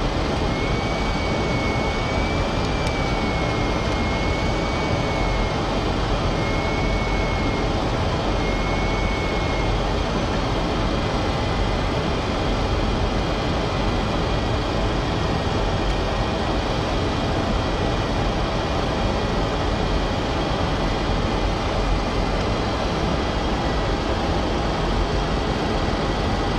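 Steady rush of airflow and engine noise inside a Boeing 737-400 flight deck on final approach, in landing configuration with gear down and flaps at 40. A faint wavering high whistle comes and goes through the first few seconds.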